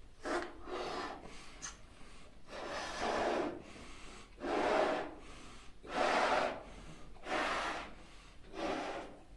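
A person blowing up a latex balloon by mouth: a series of about six hard breaths into it, each lasting up to a second, with short pauses between.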